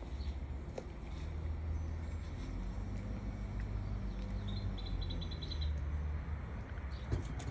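Low, steady hum of a hovering hummingbird's wingbeats. About four and a half seconds in comes a brief rapid run of high ticks.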